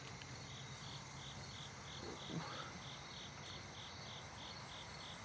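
Faint insect chirping in an even, high-pitched pulse, about three chirps a second, typical of crickets or katydids on an evening in the hills. A brief soft sound comes about halfway through.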